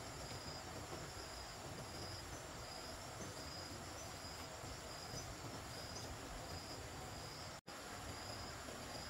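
Insects chirping in a regular pulse, a little more than once a second, over a steady high drone, with a low background rush. The sound cuts out completely for an instant about three-quarters of the way through.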